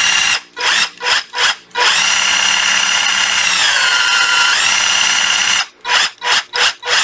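Panasonic EZ74A1 cordless drill driver's motor whining, first blipped on the trigger in four short bursts, then held for a steady run of about three and a half seconds. During the run the pitch drops and rises again, and several quick blips follow near the end. The trigger is being squeezed to different depths, a check of its variable speed.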